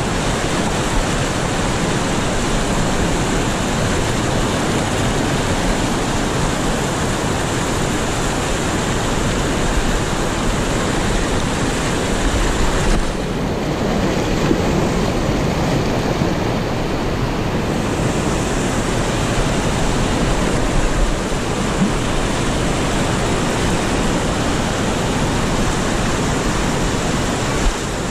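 River whitewater rushing over rock shoals close to the microphone, a loud steady rush. For about five seconds around the middle the hiss turns duller and muffled, then comes back.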